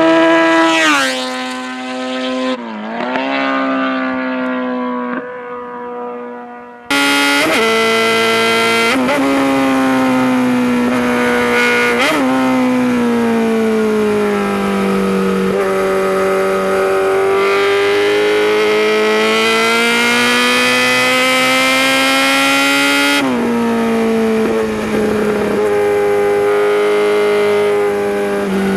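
Kawasaki Z900RS Cafe's inline-four engine: the bike passes by, its note dropping in pitch as it goes past and fading away. Then, heard from on board, the engine runs steadily under load, its pitch slowly falling and rising with the revs, with a quick jump up in revs about three-quarters of the way through.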